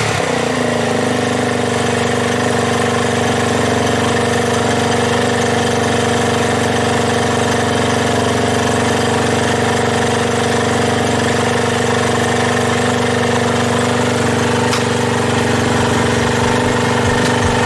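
Suzuki GN250's single-cylinder four-stroke engine idling steadily, freshly cold-started after standing for a year.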